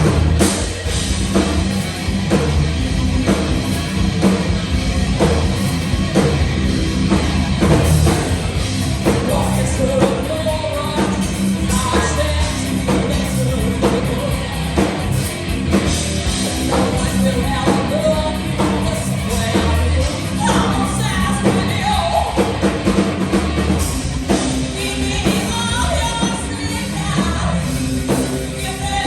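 Heavy metal band playing live at full volume: drum kit, bass and guitars with a singer's vocals over them.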